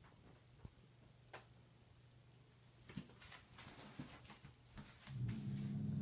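Cat making a low, steady rumbling sound close to the microphone, starting about five seconds in and much louder than anything before it. Before that there are only a few faint scattered clicks over a low steady hum.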